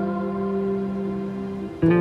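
Background music: held notes that fade slowly, then a new note struck sharply just before the end.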